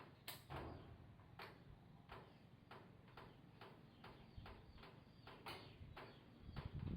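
A series of faint, sharp clicks, about two a second, over a low hum.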